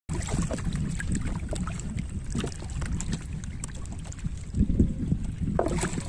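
River water splashing and lapping around floating plastic-bottle fishing floats, with wind rumbling on the microphone and a louder splash about four and a half seconds in.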